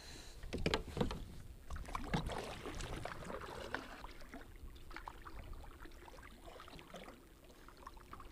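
Kayak being paddled: paddle strokes through the water with splashing and dripping, and scattered clicks and knocks, busiest in the first few seconds.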